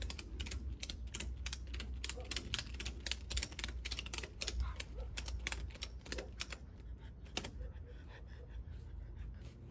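Husky endless-loop ratchet tie-down strap being tightened, its ratchet buckle clicking about four times a second. The clicking stops about seven and a half seconds in, leaving a few faint clicks.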